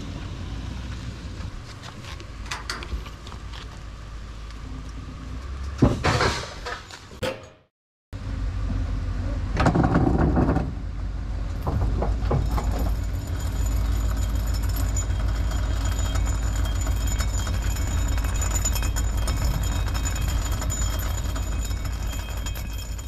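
Pickup truck towing an empty flatbed trailer, its engine running with road and trailer rattle and a clatter about six seconds in. After a short break, a vehicle engine runs steadily with an even low pulse, briefly louder about ten seconds in.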